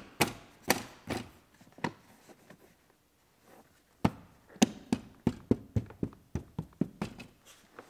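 Plastic interior trim panels of a car's console being pressed and snapped into place: a series of sharp clicks and light taps, with a short quiet pause in the middle.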